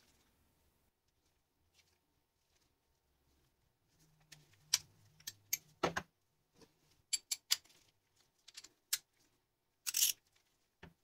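Light metallic clicks and clinks of chrome-steel socket extensions and a torque wrench being handled, set down and fitted together, in scattered single knocks over several seconds with quiet gaps between.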